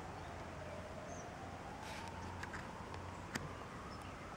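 A distant wailing siren, its pitch slowly falling and then rising again, over faint outdoor background, with a few light clicks about two and three seconds in.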